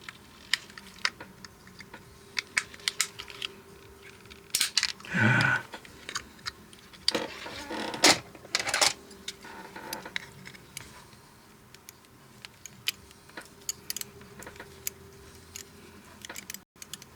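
Scattered small clicks and taps with a few short scrapes of a hand tool working a plastic lamp housing, as a sound hole over the lamp's microphone is widened.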